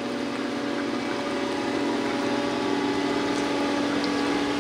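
Caterpillar 242D skid steer loader's diesel engine running steadily as the machine drives toward the listener, growing gradually louder.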